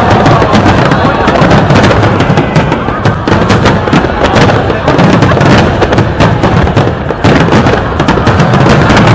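Aerial fireworks at full barrage: many shells bursting in quick succession, overlapping sharp bangs and crackling over a continuous rumble, with no letup.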